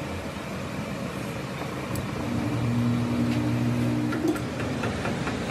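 Steady machine-shop noise. A low mechanical hum swells for about two seconds midway, and a few light metallic clicks fall near the middle.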